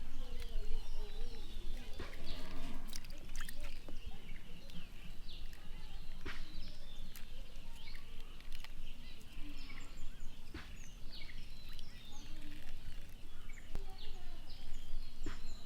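Outdoor ambience: steady background noise with many short bird chirps, scattered clicks and faint distant voices now and then.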